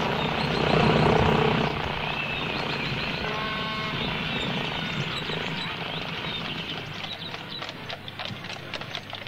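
Aircraft engine sound effect droning steadily, loudest in the first couple of seconds and then slowly fading away.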